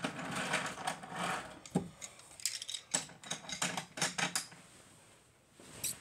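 Wooden toy trains clicking and clattering in a quick, irregular run of small hard knocks. It dies away about four and a half seconds in, with one more click near the end.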